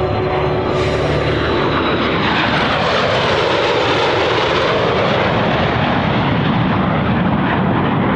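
Jet engine noise from a formation flyby of a NASA F-15B, F/A-18 and Gulfstream III, a steady loud rush. Near the middle, the rush sweeps down in pitch and back up as the jets pass.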